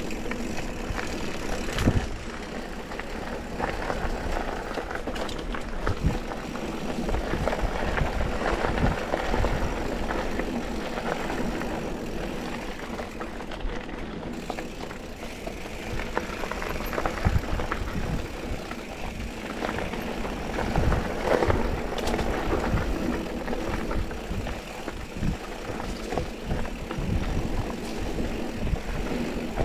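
Mountain bike riding down a dirt trail: steady tyre and trail noise with frequent irregular knocks and rattles over bumps, and wind buffeting the camera microphone.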